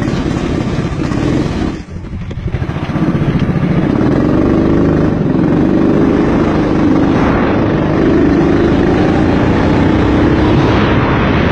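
Go-kart's small engine running at speed. It drops off sharply about two seconds in, then revs back up with rising pitch over a couple of seconds and holds high revs.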